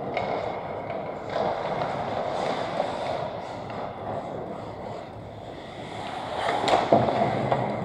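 Ice hockey skates scraping and carving on the rink ice, a steady hiss. A few sharp stick-and-puck clacks near the end as players come in on the net.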